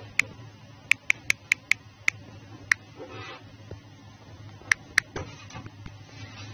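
Sharp key-press clicks from an Android phone's on-screen keyboard: a quick run of about eight as a word is erased, a pause, then two more near the end as two letters are typed, over a low steady hum.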